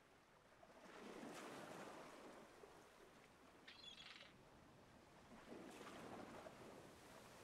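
Near silence: faint hiss with two soft swells of rushing noise, about a second in and again near the end, and a brief faint high tone in the middle.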